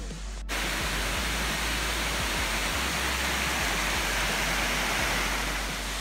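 Waterfall: a steady rush of falling water that cuts in sharply about half a second in.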